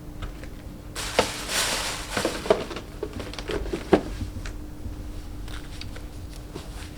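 Shoes and their packaging being handled: a brief rustle about a second in and a few light knocks and clicks, over a faint steady hum.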